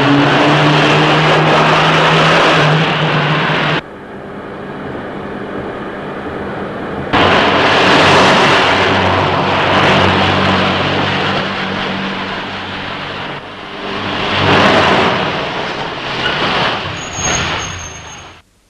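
Loud rushing noise over a steady low engine hum. It drops away suddenly about four seconds in, comes back strongly about three seconds later, swells again near the end and then cuts off abruptly.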